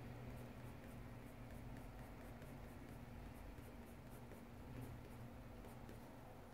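Coloured pencil scratching on sketchbook paper in short, quick shading strokes, faint, over a steady low hum.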